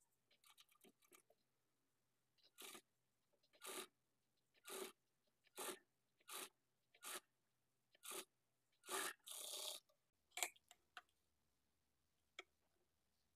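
Faint, brief rasping strokes about once a second: thread being drawn through fabric while hand-sewing a loose basting stitch, with a slightly longer rustle of cloth about two-thirds of the way through.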